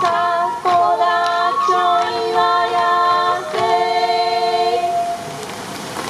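Bamboo transverse flutes (fue) of a Sansa odori ensemble playing a melodic phrase of long held notes in several voices at once, with the taiko silent; the phrase dies away about five seconds in.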